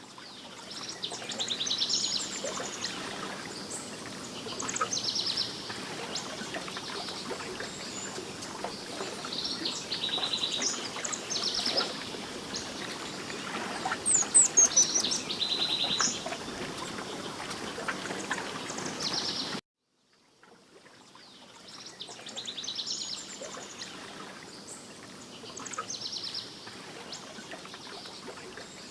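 Several birds singing and calling in repeated high trills, over a steady background hiss. The sound cuts out abruptly about two-thirds of the way through, then fades back in with more birdsong.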